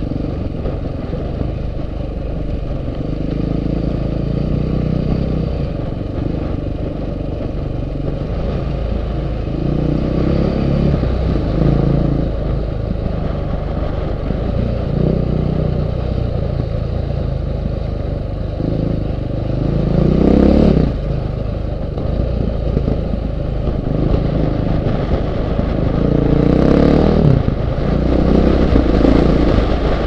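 KTM 530 EXC's single-cylinder four-stroke engine under way on a rough gravel track, its note rising and falling with the throttle, with stones clattering under the tyres. The throttle surges are loudest about twenty seconds in and again near the end.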